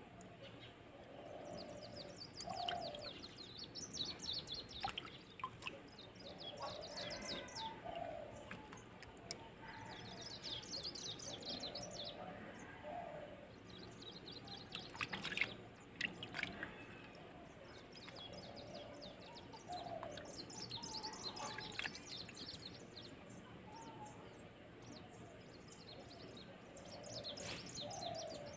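Birds chirping and calling, with short high trills repeating and lower calls every few seconds. Now and then a sharp click and light water sounds from hands working in a basin of water.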